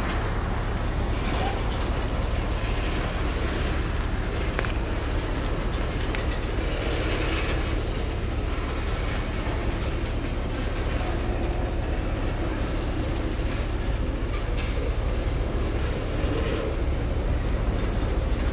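Freight train tank cars rolling past: a steady rumble of steel wheels on rail, with a few faint clicks from the wheels.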